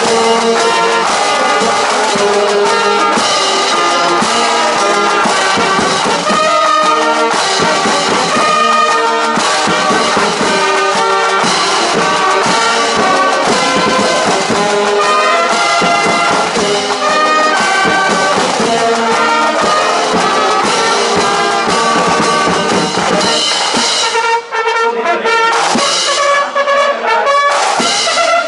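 Brass marching band playing a tune: trumpets and trombones over a drum beat, with a short break in the music near the end.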